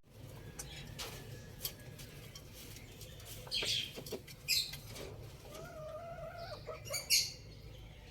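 Faint, short bird chirps, a few scattered high calls and one brief wavering call, over a low steady hum.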